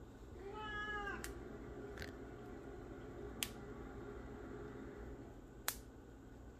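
A cat meows once, about half a second in: a single drawn-out call lasting under a second. A few sharp knocks from a kitchen knife cutting broccoli on a plastic cutting board follow; the loudest two come about three and a half and five and a half seconds in.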